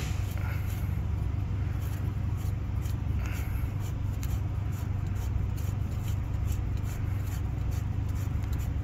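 Faint scraping and clicking as brass air brake hose fittings are threaded by hand onto a truck's brake chamber, over a steady low hum.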